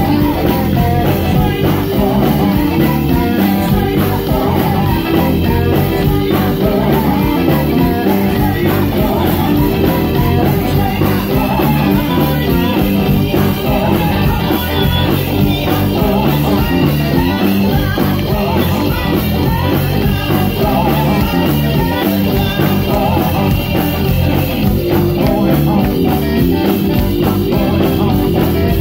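Live gospel-blues band playing: electric guitars, bass guitar and a drum kit, with women singers singing into microphones, loud and continuous.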